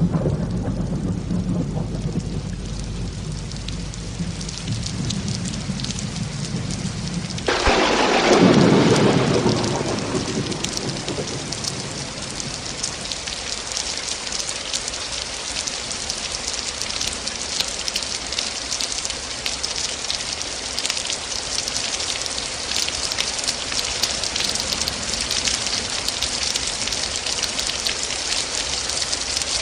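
Thunderstorm: low thunder rumbling, then a sudden loud thunderclap about seven seconds in that rolls away over a few seconds. Steady heavy rain continues after it, with fine crackle of drops.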